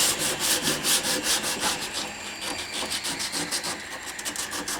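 Rapid back-and-forth strokes of a hand tool working wood, about four or five a second at first, then faster and quieter from about two seconds in.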